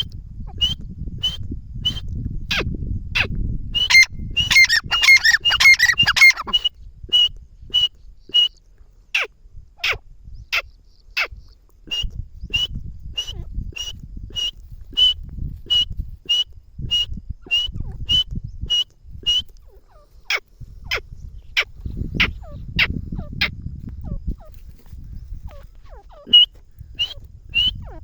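Grey francolin calling: a long series of sharp, high notes repeated about twice a second, with a few short pauses. About four seconds in, a denser burst of overlapping calls lasts a couple of seconds.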